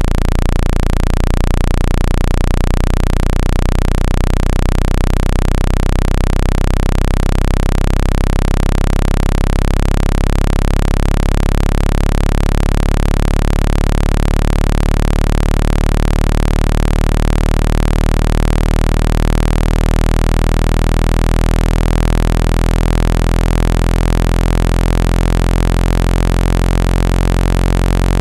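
Synthesized low-pitched speaker-cleaning tone, loud, steady and buzzy with a layer of hiss, played to shake trapped water out of a phone speaker. It flutters rapidly for the first few seconds, then holds steady.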